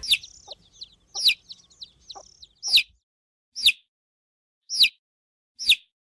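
Baby chicks peeping: loud, high, falling peeps repeating about once a second, with softer peeps in between during the first two seconds or so.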